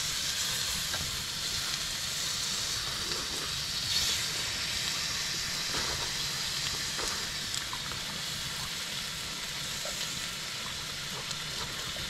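Meat sizzling on a large iron griddle over a wood fire: a steady frying hiss with a few faint ticks.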